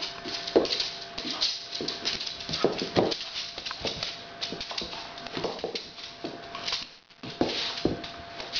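Labrador retriever puppy playing with a rubber ring toy on a hard floor: irregular knocks and scuffs from the toy and its paws, with several short whines.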